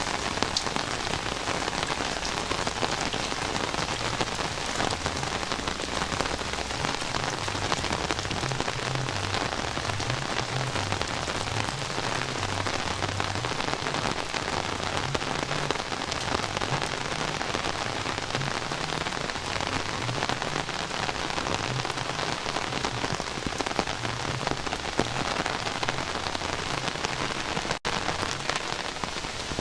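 Heavy rain falling steadily in a dense, even patter, with a split-second break near the end.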